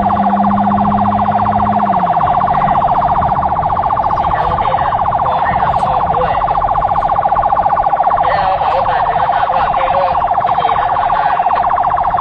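Rescue vehicle's electronic siren sounding loud and steady with a fast pulsing, then switched off abruptly near the end, the unit's mission having been called off.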